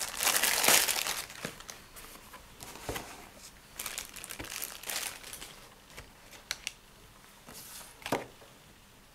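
Thin clear plastic bag crinkling as it is handled and pulled off a boxed item. The crinkling is loudest in the first second, then softer scattered crackles and light ticks follow, and there is a short knock about eight seconds in as a package is set down on the desk.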